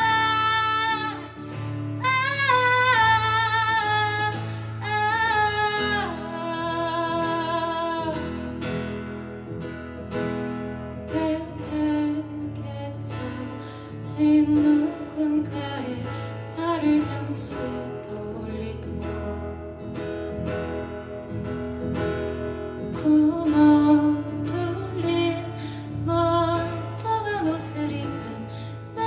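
Live band playing a song: a woman sings long held notes with vibrato over guitar for the first several seconds, then the guitar carries a stretch without singing, and the voice comes back near the end.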